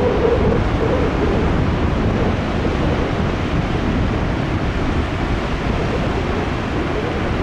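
High surf from a post-typhoon swell breaking along the coast: a loud, steady wash of crashing waves, with wind blowing on the microphone.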